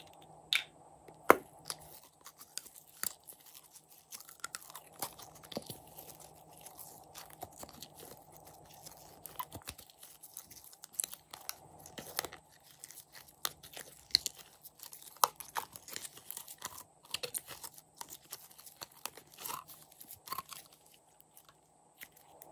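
Sticky glossy slime being squeezed and pulled by hand out of a squeeze bottle, making irregular sharp pops and crackles.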